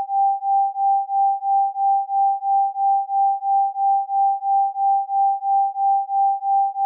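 Isochronic tone: a single pure mid-pitched tone pulsing on and off in even beats, about three a second.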